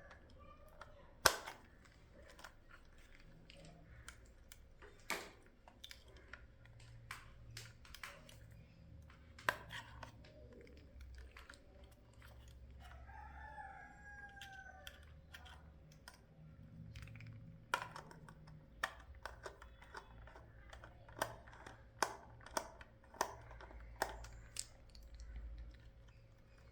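Scattered light clicks and taps of wires and terminals being handled as the solar panel leads are connected to a charge controller. A faint bird call comes about thirteen seconds in.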